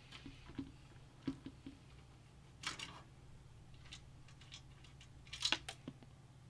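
Light clicks, taps and a short scrape of hands working on a PC case's metal back mounting plate and its screws, with a cluster of clicks near the end. A low steady hum runs underneath.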